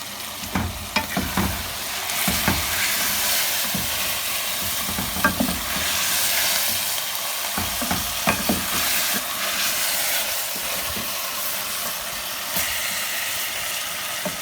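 Beef keema sizzling steadily in oil in a cooking pot while it is stirred, a spoon scraping and knocking against the pot every few seconds. The mince is at the end of its frying, with the oil separating out.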